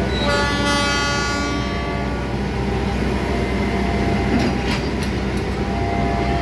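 Stainless-steel passenger coaches rolling past on a shunting move, a steady rumble of wheels on rail, with a train horn sounding for about two seconds near the start and a few sharp clicks from the wheels a little later.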